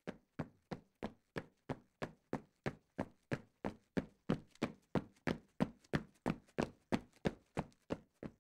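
Footsteps, about three steps a second in an even rhythm, growing louder toward the middle and easing slightly near the end.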